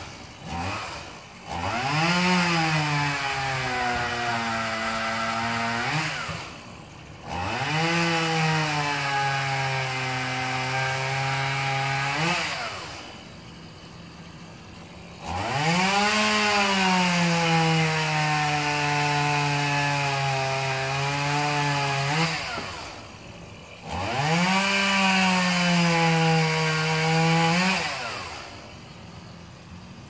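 Stihl two-stroke chainsaw revved up four times for several seconds each, the pitch sagging under load as it cuts into wood and dropping back to idle between cuts.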